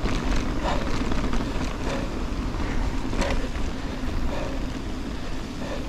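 Mountain bike rolling along a gravel road: steady tyre rumble and wind on the camera microphone, with scattered clicks and rattles from the bike.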